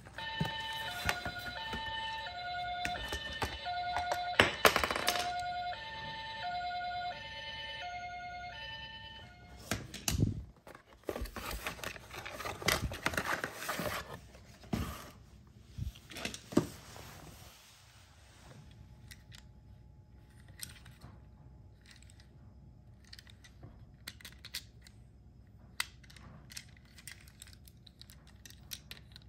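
Electronic hi-lo siren of a battery-powered toy ambulance, two tones alternating every half second or so, which stops about nine seconds in. It is followed by crinkling and tearing of toy packaging being opened, then faint clicks of plastic toys being handled.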